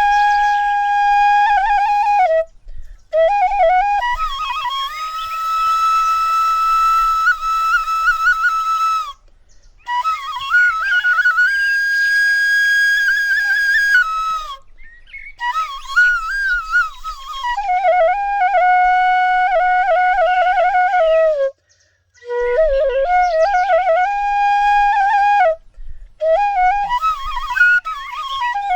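Flute music: a slow melody of held notes decorated with quick trills and turns, played in phrases separated by short pauses.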